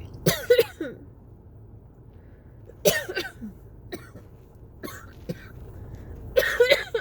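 A person coughing in repeated fits during a cough-variant asthma attack: three loud bouts of several coughs each, a few seconds apart, with a few fainter coughs between.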